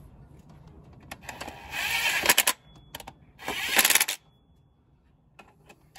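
Cordless impact wrench run in two short bursts, about two seconds in and again near four seconds, each a rapid hammering rattle as it drives home the water pump bolts.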